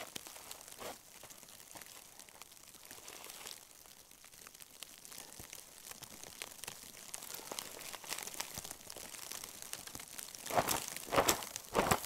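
Jacket fabric rustling and crinkling as the jacket is taken off, with a few soft crunches of boots shifting in snow. A run of louder rustles comes near the end as the jacket comes off.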